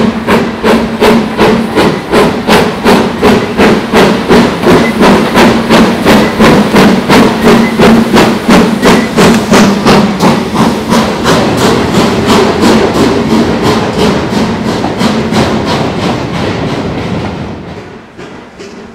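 GWR Castle class four-cylinder steam locomotive working hard under load, its exhaust beating in a fast, even rhythm. It is very loud, then falls away sharply near the end.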